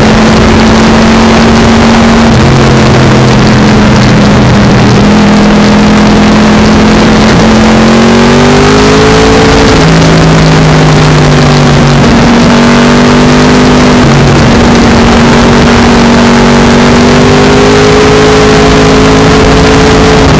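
2009 Yamaha R1's crossplane inline-four engine and exhaust under way at road speed, its note holding, slowly rising and dropping back several times as the throttle and gears change, over a steady rush of wind.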